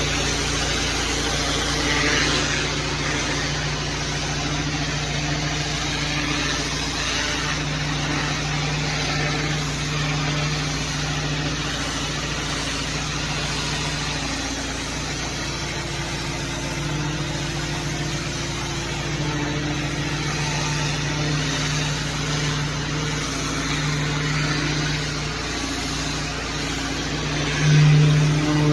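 Small petrol engine on outdoor cleaning equipment running steadily under a constant hiss, with a brief louder swell near the end.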